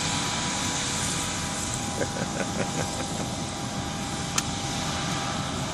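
Engine running steadily at a constant speed, with an even hum holding through.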